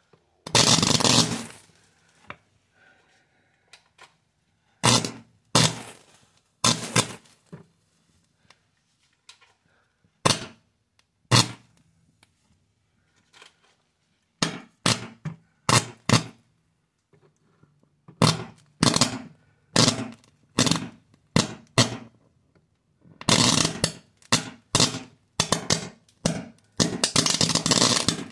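High-voltage electric arcs crackling and spitting across a charred computer motherboard in sharp bursts, each dying away within about a second. The bursts come sparsely at first, then faster and closer together, and run almost without a break through the last five seconds as the board flares into flame.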